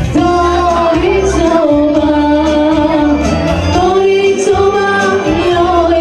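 A woman singing a folk song through a microphone over amplified backing music, holding long notes.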